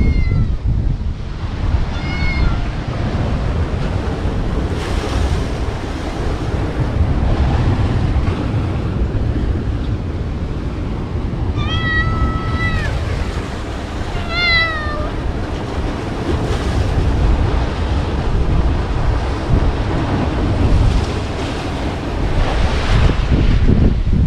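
Steady wind rumbling on the microphone, with four short, high-pitched animal calls: two in the first few seconds and a longer pair near the middle.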